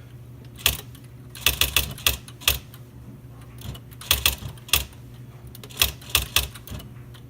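Smith Corona XE-1950 electronic daisywheel typewriter typing a word: sharp irregular key strikes in quick clusters, about fifteen in all, over a steady low hum from the powered-on machine.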